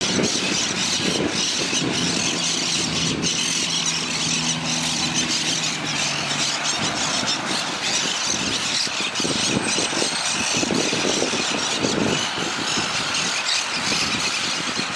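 Steady outdoor noise, a loud even hiss, with a low steady hum, like a motor, for a few seconds in the first half.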